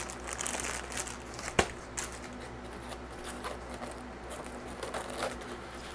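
Rustling of a plastic-bagged cable and light handling of parts being lifted out of a cardboard box with foam packing, with one sharp tap about a second and a half in and a smaller one just after.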